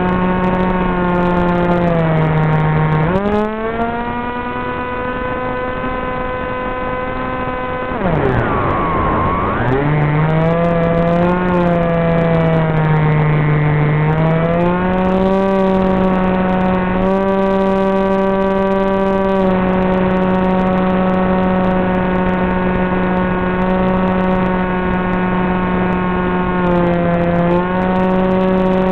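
Wing Wing Z84's brushless motor (Turnigy 2826 2200kv) and pusher propeller droning in flight, a steady pitched hum that follows the throttle. The pitch drops about 3 s in, swoops down and back up around 8 to 10 s, and dips briefly near the end.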